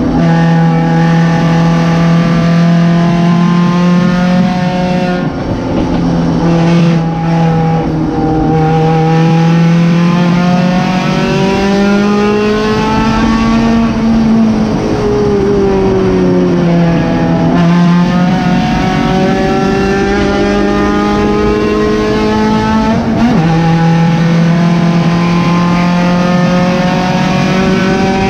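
1991 Honda Civic EF hatchback's D16 inline-four engine heard from inside the car's cabin under race load, its note climbing and falling as the car accelerates and slows through the corners, with a few abrupt pitch changes.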